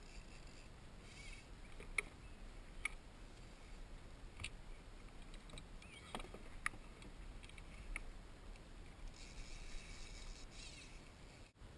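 Faint water and wind noise around a plastic sit-on-top kayak, with about six sharp light clicks and knocks on the boat.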